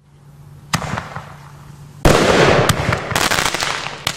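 Lesli Scepter Duo roman candles firing: a quiet rising hiss and a single pop, then about two seconds in a loud launch followed by dense crackling of the stars that carries on.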